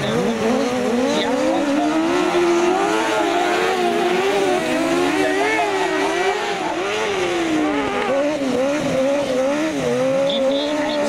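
Engines of off-road racing buggies revving hard, the pitch rising and falling over and over as the buggies slide through the corners.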